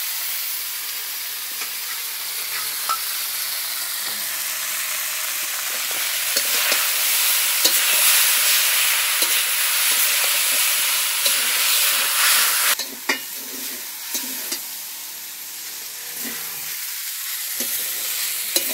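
Chowmein noodles sizzling and frying in a hot metal kadai with vegetables and sauces as they are stirred and tossed. A metal spatula scrapes and knocks against the pan. The frying hiss is strongest mid-way, drops suddenly about thirteen seconds in, and is then broken by scattered knocks of the spatula.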